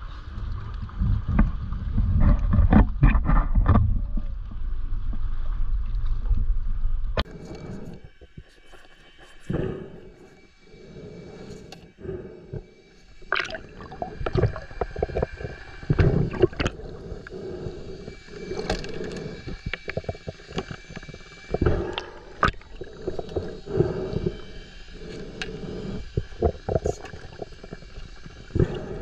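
Water sloshing and splashing against the camera at the surface for about seven seconds, then a sudden drop into the muffled sound under water: scattered knocks, clicks and gurgles as a speargun's rubber bands and line are handled.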